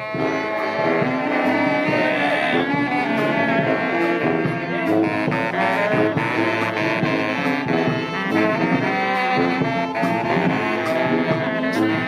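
Saxophones of a street brass band playing a lively tune together, several horns sounding at once. Short sharp hits join in from about halfway.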